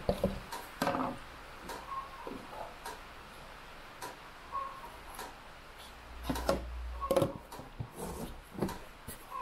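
Plastic supplement tub and scoop being handled: the lid is lifted off, a plastic scoop dips into the powdered supplement about four seconds in, and the lid is pressed back on near the end, giving scattered clicks and knocks.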